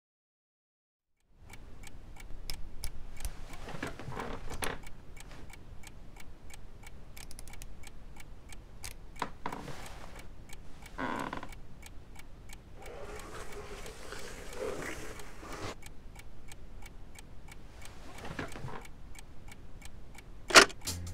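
Wall clock ticking in a quiet room among scattered small rustles and shuffles. A sharp click near the end comes from a button pressed on a reel-to-reel tape recorder.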